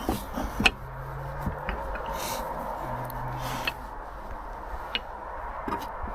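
Old woodworking hand tools being handled: a few sharp clicks and knocks, the loudest about half a second in, over a steady background hiss.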